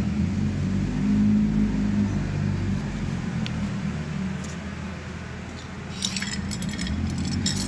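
Steady low background hum, with quick light metallic clinking and rattling of hand tools starting about six seconds in.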